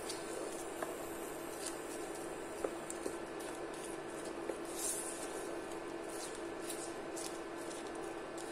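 Chopped onions, green chilies and whole spices sizzling gently in hot oil in a non-stick pan as a wooden spoon stirs them, with scattered small crackles and brief scrapes of the spoon over a steady hum.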